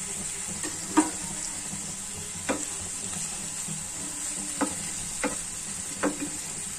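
Onion rings and green beans sizzling in oil in a non-stick frying pan, stirred with a wooden spatula that knocks against the pan five times, the first knock the loudest.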